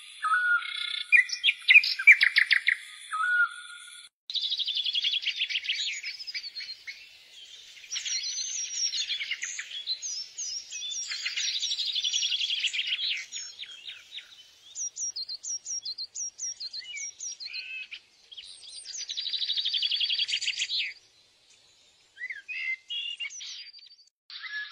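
Small songbirds singing in a series of separate stretches that start and stop abruptly: fast, high-pitched trills and chirps, some clear whistled notes in the middle, and a short pause near the end.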